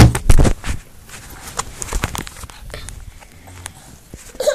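Camera handling noise: loud thumps and rubbing on the microphone in the first half-second, then scattered faint knocks and clicks.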